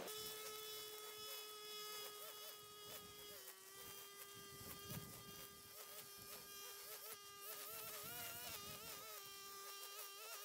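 A small motor running with a steady high-pitched buzz, its pitch dropping slightly about a third of the way in and wavering briefly now and then.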